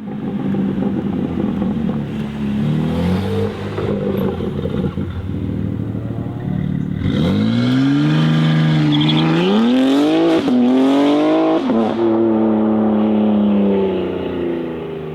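BMW M3 G81 Touring's twin-turbo straight-six held at raised revs for several seconds, then launching hard. The revs climb quickly, drop briefly at two upshifts about ten and twelve seconds in, then the engine note slowly falls in pitch and fades as the car pulls away.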